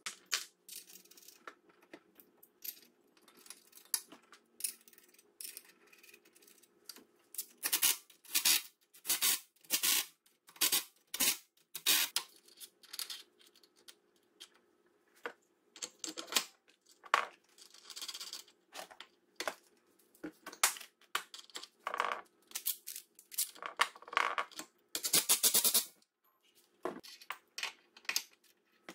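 Metal parts and hand tools clinking and clattering in irregular bursts of sharp clicks, with a faint steady hum underneath.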